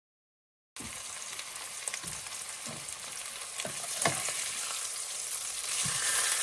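Minced meat sizzling as it fries in a pan, with the short knocks of a spoon or spatula stirring it now and then. It starts abruptly about a second in and gets a little louder toward the end.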